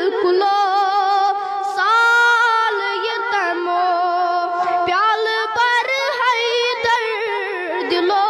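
A boy singing a Kashmiri naat, a devotional song in praise of the Prophet, unaccompanied, with long held notes that waver in pitch.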